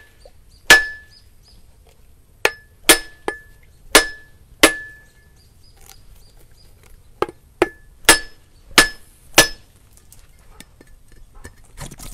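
A cleaver striking a coconut shell again and again to crack it open: about eleven sharp knocks in two runs with a pause of a couple of seconds between, several of them leaving a short metallic ring from the blade.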